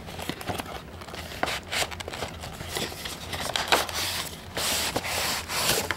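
A cardboard model-train box being handled and its inner tray slid out, with irregular scraping and rustling of cardboard and plastic. The sound is loudest in the last second and a half.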